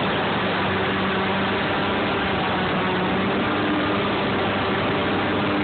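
Airboat's engine and propeller running steadily: an even drone with a dense hiss over it, without revving up or down.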